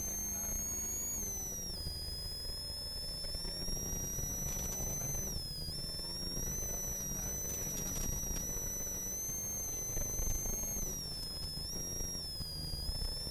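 Ford Sierra RS Cosworth's turbocharged 2.0-litre four-cylinder engine pulling hard, heard inside the cabin, with a high turbo whistle over the engine note. Engine note and whistle rise and fall together, dipping several times as the revs drop.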